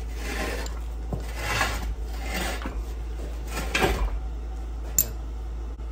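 Blacksmith's tongs and steel stock shifted and scraped on the anvil face: four short rubbing scrapes and two light clicks, over a steady low hum.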